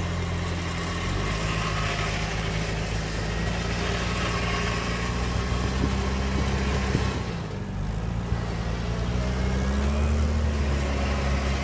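Jeep Cherokee XJ engine running steadily at low throttle as the Jeep crawls over a tree stump on a steep dirt climb, with a brief dip about two thirds of the way through and the note rising slightly near the end.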